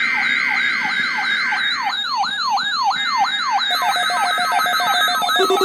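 Electronic siren sounding in rapid, repeating falling sweeps, about three a second, layered with steady electronic tones. Pulsing beeps join in near the end.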